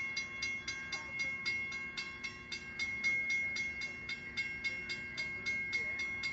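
Railroad grade-crossing warning bell ringing rapidly and steadily, about four to five strikes a second, each strike on the same high ringing tone.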